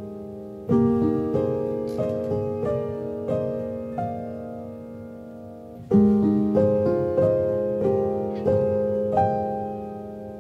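Background music: a slow solo piano piece. Chords and single notes are struck and left to ring out, with two fuller chords about a second in and about six seconds in.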